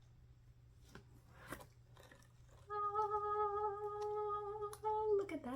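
A woman humming one long steady note that slides down in pitch near the end, after a couple of faint clicks.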